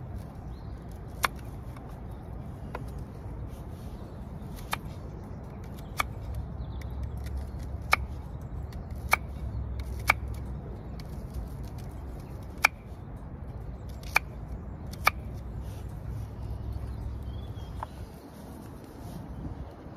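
About a dozen sharp, irregular clicks over a steady low rumble.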